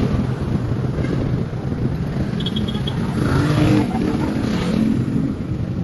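Street traffic: a steady rumble of engines from passing cars, vans and motorcycles, with one vehicle growing louder as it goes by about three to five seconds in. A quick run of four short high beeps comes about two and a half seconds in.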